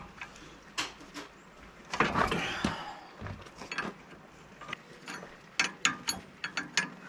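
Hand wrench working on a mini excavator's hydraulic pilot-hose fittings: metallic clinks and clicks, with a louder clatter about two seconds in and a run of quick sharp clicks near the end.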